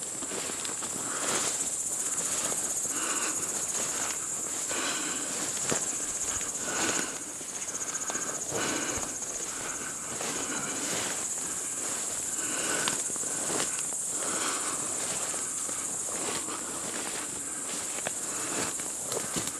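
Steady high-pitched chirring of crickets in the summer vegetation, with footsteps and the swish of legs brushing through dense undergrowth at a walking pace, about two steps a second.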